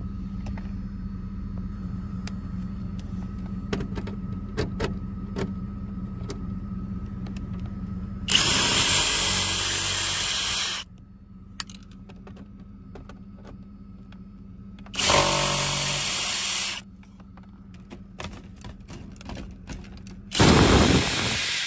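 Power drill running in three bursts of one to two and a half seconds each, backing out screws. Light clicks between the bursts, over a steady low hum.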